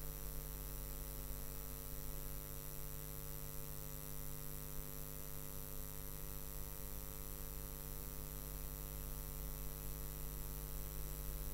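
Steady electrical mains hum, a low buzz with many even overtones, holding constant throughout.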